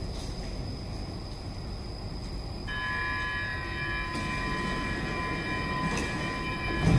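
Stockholm metro train running with a steady low rumble; about three seconds in, a high steady whine of several tones sets in and holds, and a loud low thump comes near the end.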